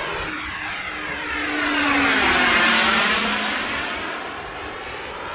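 Radio-controlled model jet flying past. Its engine noise swells to a peak about two and a half seconds in and then fades, with a low tone dropping in pitch as it goes by.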